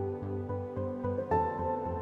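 Background music: held chords over a bass line pulsing about three times a second, with a new chord coming in a little past halfway.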